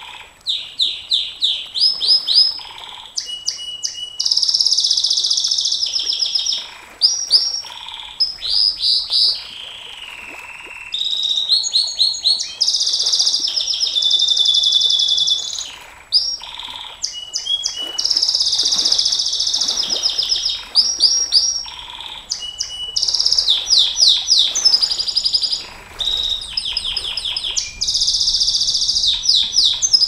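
Domestic canary singing a long, high-pitched song: runs of rapid repeated notes and fast trills, with only brief breaks.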